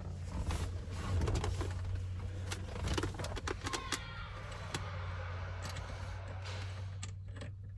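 Irregular metallic clicks and clinks of hand tools and bolts being handled while a steering-wheel hub adapter is bolted onto the column, over a steady low hum.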